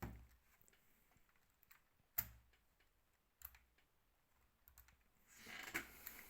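Near silence with a few faint clicks and knocks from handling a plastic RC rally car on a table, one sharper click about two seconds in, and a soft rustle near the end.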